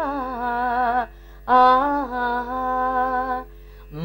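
A woman singing unaccompanied in Carnatic style: two long held phrases with ornamented pitch bends, the first about a second long and the second about two, with short pauses between. A faint steady drone holds through the pauses.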